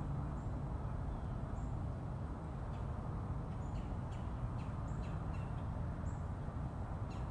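Scattered short, high bird chirps over a steady low rumble.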